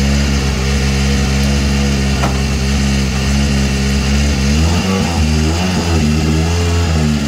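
Hyundai i20 N Rally1's 1.6-litre turbocharged four-cylinder engine idling steadily. From about halfway the revs rise and fall in a few short blips.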